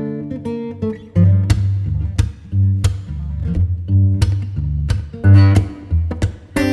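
Background music led by acoustic guitar, plucked and strummed, over low bass notes.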